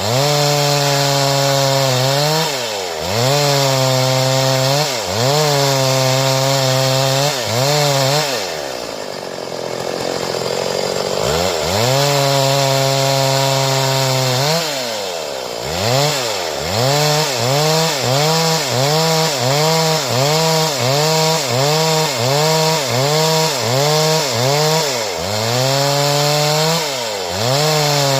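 Stihl two-stroke chainsaw running at high revs while cutting boards, its pitch dipping and recovering again and again. About nine seconds in it falls low for a couple of seconds, then runs up again. Later it pulses quickly, about one and a half dips a second.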